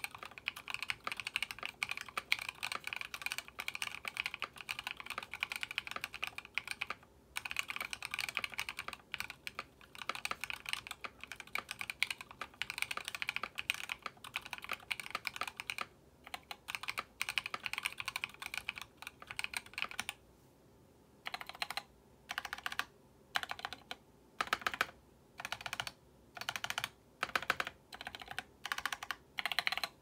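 Custom mechanical keyboard being typed on: C³ Equalz x TKC Banana Splits linear switches, lubed and filmed, under MDA-profile PBT keycaps, on an acrylic plate in a stacked acrylic case. Fast continuous typing with brief pauses, then after about twenty seconds single keys pressed one at a time, about one and a half a second.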